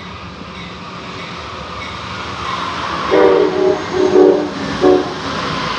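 An approaching train's rumble grows steadily louder, then its multi-tone horn sounds about three seconds in: two longer blasts followed by a short one.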